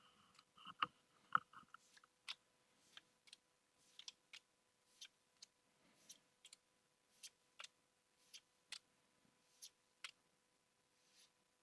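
Pokémon trading cards being flicked through one at a time: a run of soft clicks and snaps, roughly one or two a second, with two louder snaps about a second in.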